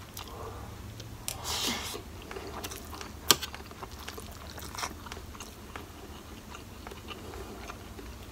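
Close-up eating sounds: a person chewing a mouthful of rice and instant noodles with small mouth clicks, a brief breathy noise about a second and a half in, and one sharp clink of a metal spoon against the plate a little past three seconds.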